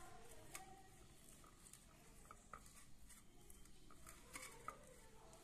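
Faint rubbing and scraping of fingers kneading soft peda dough on a stainless steel plate, with a few light scattered clicks.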